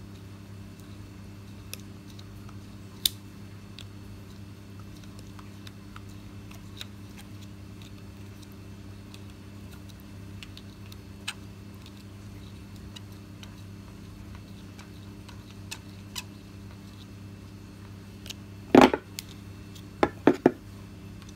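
Scattered small clicks and metal ticks from pliers working a thread-locked bushing loose from a stepper pump, over a steady low hum. Near the end there is a louder metallic clatter, then three quick clicks.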